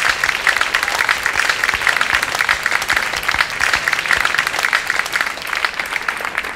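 Crowd applauding, many hands clapping at once in a dense, steady patter.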